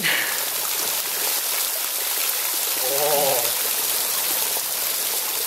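Water falling and dripping in a steady hiss from a mossy rock overhang, a curtain of spray and drips. A short wavering vocal sound from a person comes about three seconds in.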